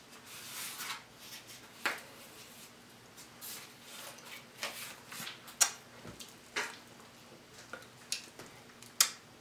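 Scattered sharp clicks and taps of hands handling a sheet cake on its board as it is lifted and held up, with a soft rustle in the first second and a few louder taps, about 2, 5½, 6½ and 9 seconds in.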